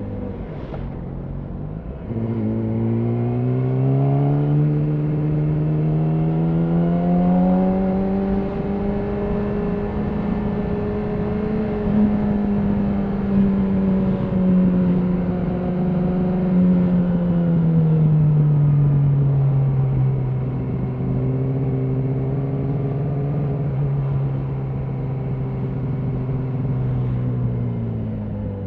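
Yamaha R6's 600cc inline-four engine through an Akrapovic slip-on exhaust, heard from the bike while riding. After a brief dip about two seconds in, the engine pitch climbs steadily for several seconds under acceleration and holds high. It then falls back and runs steady at a lower pitch.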